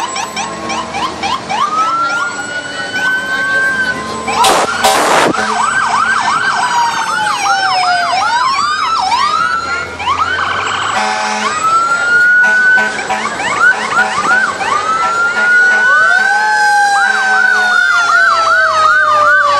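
Several fire truck sirens sounding at once: overlapping slow wails rising and falling, mixed with runs of fast yelping.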